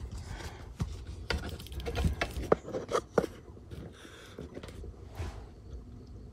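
Handling noise from a camera being picked up and set down: rubbing against the microphone with a run of sharp knocks and clicks between about one and three seconds in, the last two the loudest.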